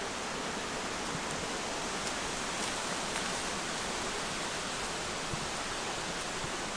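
Steady, even outdoor hiss with a few faint clicks.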